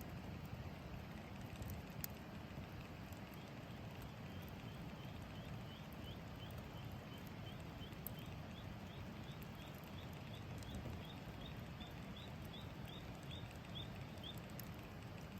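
Campfire burning with a low steady rush and a few sharp crackles. From about three seconds in until near the end, a series of quick high chirps repeats, about two or three a second.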